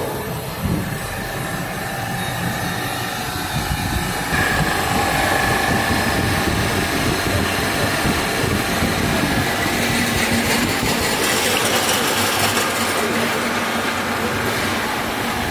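Freezer's refrigeration condensing unit running: the compressor and condenser fans make a steady mechanical noise with a faint whine. It grows louder about four seconds in.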